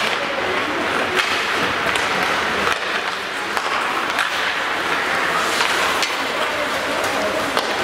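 Ice hockey play in a rink: skate blades scraping the ice and several sharp clacks of sticks and puck, over a low murmur of voices.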